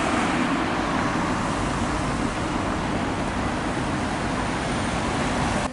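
Steady rushing noise of vehicles, like road traffic, holding even throughout and cutting off abruptly at the end.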